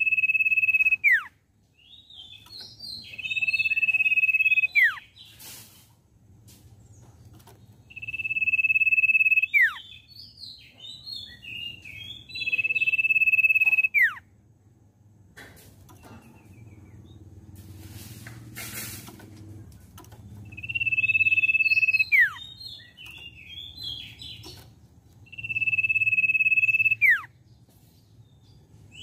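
Common iora (cipoh) singing: a long, steady whistle that ends in a sharp downward slur, alternating with bursts of quick chattering notes. The phrase comes six times, with a longer pause about halfway through.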